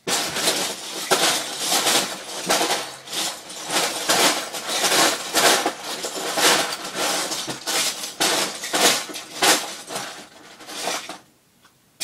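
Hands rummaging through a pile of loose Lego pieces, the plastic bricks clattering and clicking continuously, thinning out and stopping near the end.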